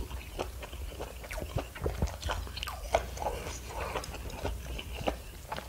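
A person chewing a mouthful of fried tofu soaked in tteokbokki sauce, close to the microphone: a run of irregular small mouth clicks and smacks.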